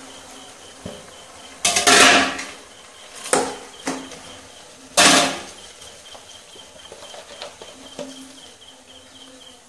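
Clatter of a stainless-steel bowl and frying pan as half-cooked chicken is emptied from the bowl into the pan and worked in by hand: a few sharp metal knocks and scrapes, the loudest about two and five seconds in.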